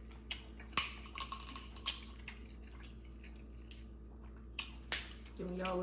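Crab leg shells being cracked and snapped open by hand: a handful of sharp cracks, the loudest about a second in, with quieter picking sounds between.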